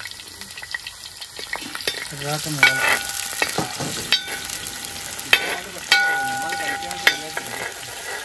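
Chopped ginger sizzling in hot oil in a large aluminium pot, stirred with a perforated metal ladle. Several times the ladle knocks against the pot, each knock ringing briefly.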